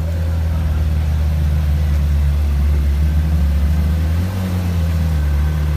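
Ferrari supercar engine idling with a deep, steady hum and a slight rise in pitch about four seconds in.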